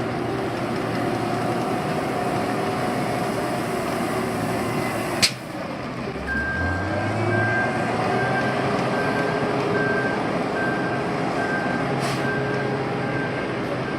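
Heavy road-construction machinery running with its diesel engine. A sharp click comes a little after five seconds. From about six seconds in, a backup alarm beeps steadily about twice a second.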